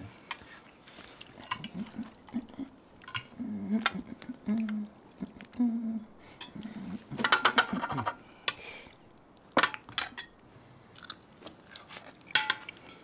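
Knives and forks clinking and scraping on china dinner plates in scattered, irregular clicks, with some chewing.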